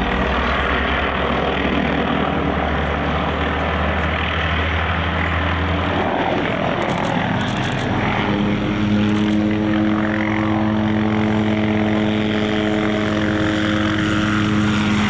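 Hughes MD 500 helicopter in flight: the continuous sound of its rotor and turboshaft engine. About six seconds in the deep low rumble drops away, and the sound settles into a steady hum with several overtones as the helicopter comes lower and nearer.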